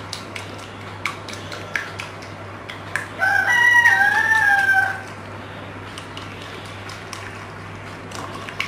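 Wire whisk clicking and tapping against a ceramic bowl as it beats a thin semolina batter. About three seconds in, a rooster crows once for about two seconds, the loudest sound.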